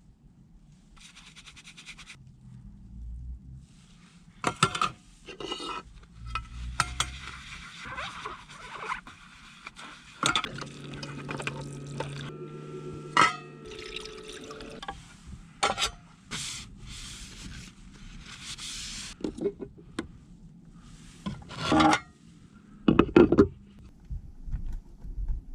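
Cookware and utensils handled with scattered knocks and clatter. Liquid is poured into a container for a few seconds around the middle, and there are a couple of heavier thumps near the end.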